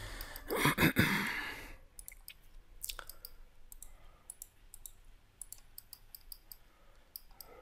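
Scattered, irregular clicks of a computer mouse and keyboard while a 3D model is edited, with a loud breath into the microphone about a second in.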